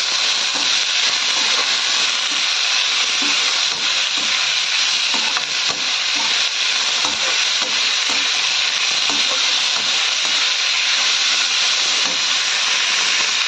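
Shredded cabbage, onion and capsicum sizzling steadily as they stir-fry in a metal kadhai. Many small scrapes and taps come from a perforated steel spoon turning the vegetables against the pan.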